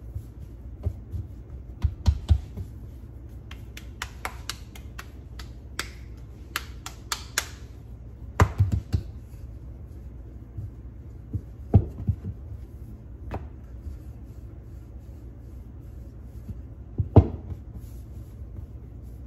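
Flour-tortilla dough being pressed by hand and rolled out with a wooden rolling pin on a countertop: scattered taps and knocks of hands and pin against the counter, several louder thumps among them, over a steady low hum.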